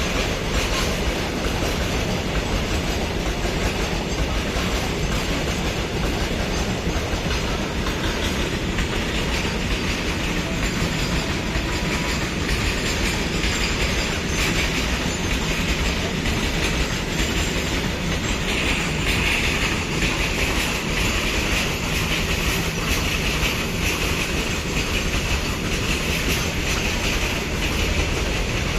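Goods train running on the track: a steady rumble with the clickety-clack of wheels over rail joints. A brighter, higher hiss in the wheel noise comes in about two-thirds of the way through.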